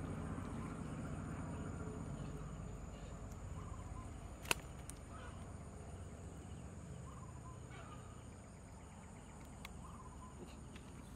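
A bamboo fish trap being handled: low rustling and one sharp click about halfway through as the slats and ties are worked, over a steady high insect drone.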